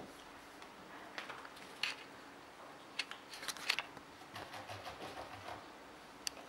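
A cat playing with a feather wand toy: scattered sharp clicks and soft rustling, with a cluster of clicks around the middle.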